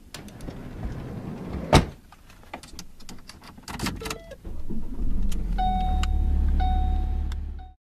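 Inside a Ford car: handling clatter and one sharp knock about two seconds in, then the engine starts and runs with a low rumble while a dashboard warning chime sounds about once a second. The sound cuts off suddenly at the end.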